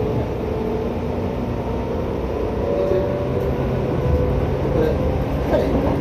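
JR 201 series electric train heard from inside the car: a steady low rumble with a faint motor hum that shifts slightly in pitch.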